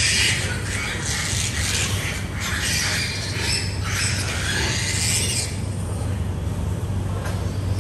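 Sow and piglets in a pen, with irregular squeals and scuffling for the first five seconds or so, then calmer, over a steady low hum.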